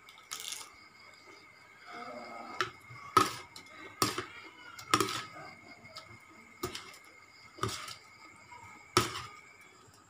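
A metal spoon clinks sharply against a ceramic bowl of papaya salad about half a dozen times, roughly once a second, as food is scooped. Softer chewing and mouth sounds of eating come in between.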